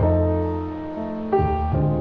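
Background music: soft piano chords, with new notes struck at the start, a little over a second in, and near the end.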